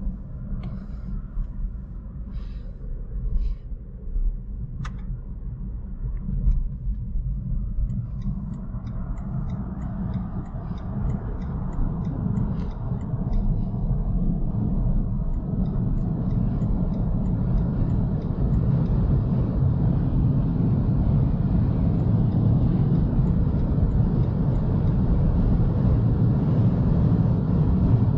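Road and tyre rumble with wind noise from a BMW i3 electric car driving at speed. It grows steadily louder and hissier as the car picks up speed, with a few light clicks in the first five seconds.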